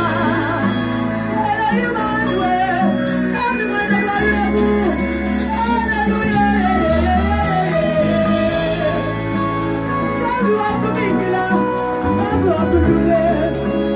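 Live gospel worship band playing, with electric bass, congas and keyboard under a lead singing voice; the bass moves through held low notes over a steady hand-drum beat.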